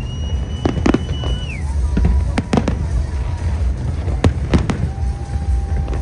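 Aerial fireworks shells bursting: irregular sharp bangs, some in quick pairs, over a steady low rumble.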